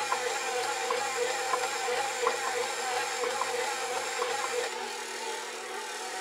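KitchenAid Professional HD 475-watt stand mixer, with all-metal gears, running steadily as its dough hook kneads a large batch of wet pita dough in the steel bowl. Its steady motor hum carries light knocks about every two-thirds of a second as the dough turns. The knocks stop about three-quarters of the way through, and the sound gets a little quieter.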